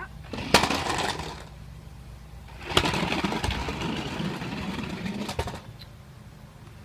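Toy RC car's small electric motor whirring in two bursts as the remote is worked: a short one about half a second in, then a longer one of about two and a half seconds.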